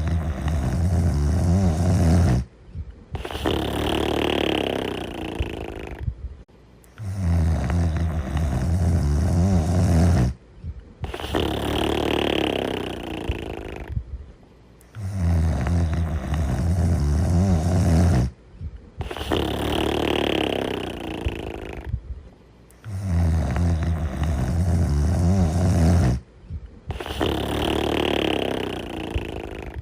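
A sleeper snoring steadily. Each breath is a low, pulsing snore of about three seconds, a brief pause, then a breathy, hissing exhale of about three seconds, with a full breath roughly every eight seconds.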